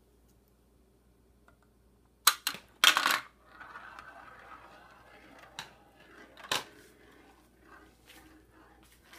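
Marbles clattering down a plastic marble-run tower: a burst of sharp hard clicks as they drop onto the plastic track, then a stretch of rolling as they circle a plastic funnel, then a few single sharp clicks.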